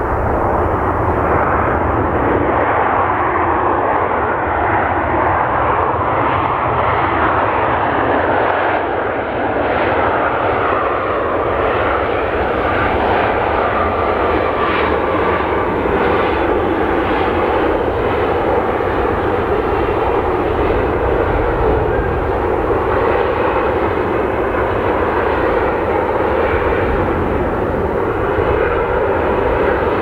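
Boeing 737-700's CFM56-7B turbofan engines running loud and steady as the airliner rolls out on the runway after landing.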